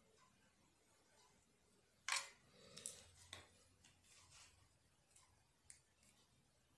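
Faint handling noise of replacement battery cells and wires: a sharp click about two seconds in, then a few lighter clicks and scrapes, and a couple of faint ticks near the end.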